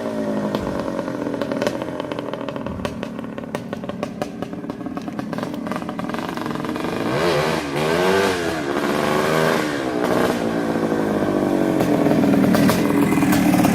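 1974 Suzuki TM400's single-cylinder two-stroke engine running. Its note drops back at the start, is revved up and down a few times about halfway through, then holds a steadier, louder note near the end.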